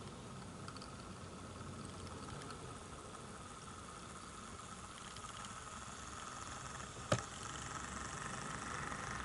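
Model Class 08 diesel shunter running slowly along the track with a steady engine-like hum, drawing parcels vans. There is a single sharp click about seven seconds in.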